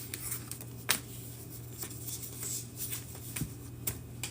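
Tarot cards being shuffled by hand: irregular rustles and soft clicks of the deck, with a sharper snap about a second in. A steady low hum runs underneath.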